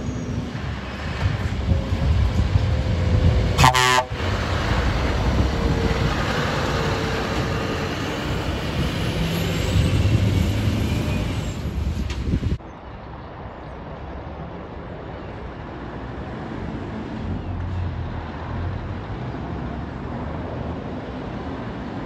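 Scania V8 lorries driving past close by, the engine's low rumble rising as they pull away, with a short horn toot about four seconds in. About twelve seconds in the sound cuts abruptly to a quieter, steadier truck engine.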